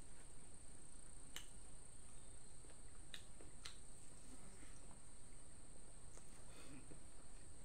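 Faint eating sounds of a man eating chicken and greens by hand: a few sharp clicks while he chews and picks up food, over a steady high-pitched whine.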